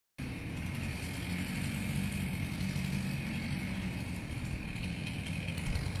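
An engine idling steadily with a low drone.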